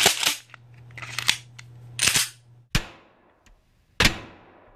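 Shotgun sound effects: five sharp cracks about a second apart, the last with a long fading echo. A low hum runs under the first three and stops at the fourth.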